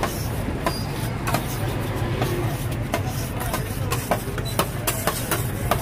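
Two metal spatulas striking and scraping a stainless-steel cold plate as ice cream is chopped and spread for rolled ice cream. Sharp irregular clicks come about twice a second over a steady low hum.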